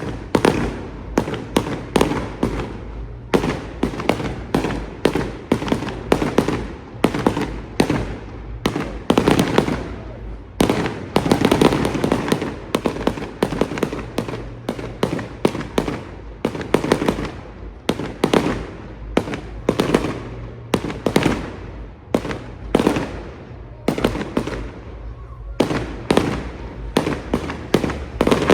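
Fireworks display: a rapid string of shell bursts and crackling bangs, several a second, going on throughout with only brief gaps.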